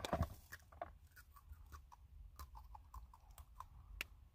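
Faint crunching and chewing of Pocky chocolate-coated biscuit sticks, with scattered small crisp clicks and one sharper click near the end.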